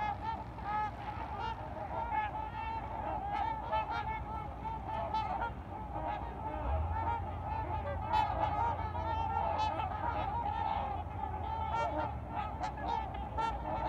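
A large flock of trumpeter swans calling on the water: a continuous chorus of many overlapping calls.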